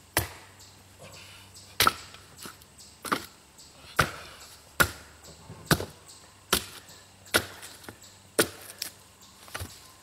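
Axe repeatedly striking a log on a chopping block: about ten sharp chops, a second or less apart, hacking at stringy, knotty wood that will not split cleanly.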